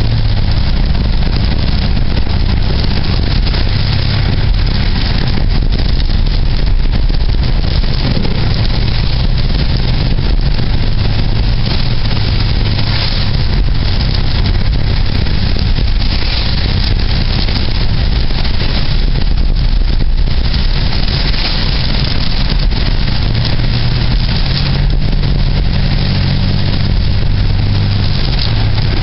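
A motor vehicle running, most likely heard from inside while driving: a loud, steady rush of noise over a low engine hum that shifts in pitch a few times, most clearly near the end.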